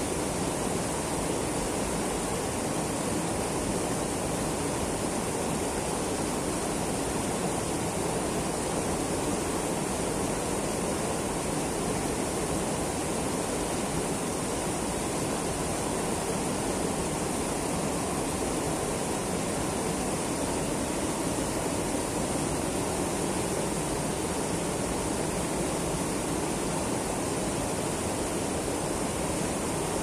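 Mountain river rushing over a low rock ledge in a wide cascade: a steady, even rush of falling and churning water.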